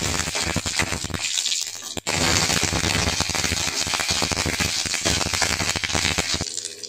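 Tempering sizzling and crackling in hot oil in a kadai: dried red chillies, seeds and curry leaves frying as a metal ladle stirs them. There is a brief break about two seconds in.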